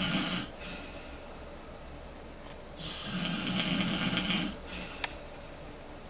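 A sleeping person snoring loudly despite Breathe Right snore relief, with long snores about every four seconds and quieter breathing between: one snore fades just after the start and another runs from about three to four and a half seconds in. A single sharp click sounds about five seconds in.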